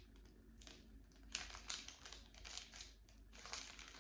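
Faint crinkling of thin plastic bags of diamond painting drills being handled, a quick string of soft rustles.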